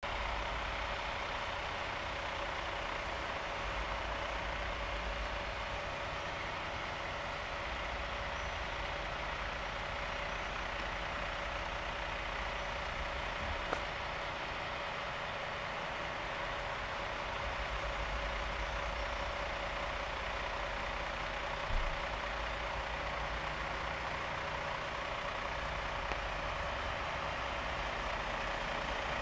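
PKP Intercity SU42 diesel locomotive standing at the platform with its engine idling steadily. Two brief clicks sound about 14 and 22 seconds in.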